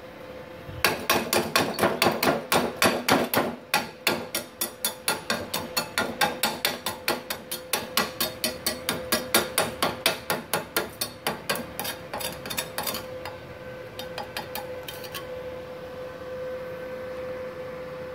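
Rapid metal-on-metal strikes, about four or five a second, of a chipping hammer on a freshly laid stick-weld bead on steel plate, knocking off the slag. They start about a second in and die out between thirteen and fifteen seconds in. A steady hum runs underneath.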